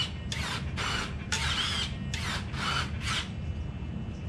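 Traxxas TRX6 RC truck's electric motor and drivetrain whirring in about five short throttle blips, the whine rising and falling in pitch within each.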